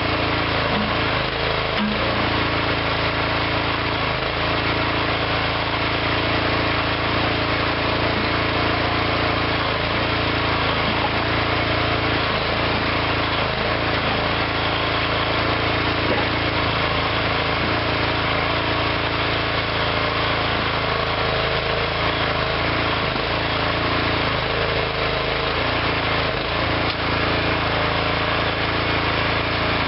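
Engine of a small DIY hydraulic backhoe running steadily, its pitch wavering slightly now and then.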